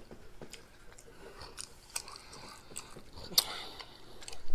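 A person chewing food close to the microphone: scattered soft, wet mouth clicks and smacks, the loudest about three and a half seconds in.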